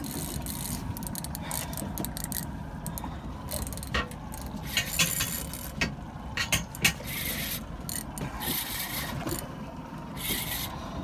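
Spinning reel under heavy load from a hooked bluefin tuna: the drag ticks and rasps in irregular bursts as the fish takes line, and the handle is cranked, with a low steady rumble underneath.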